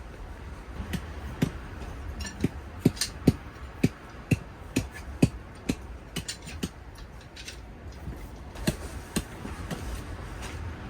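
A run of short sharp knocks, about two a second for several seconds, then a few more near the end, over low wind rumble on the microphone.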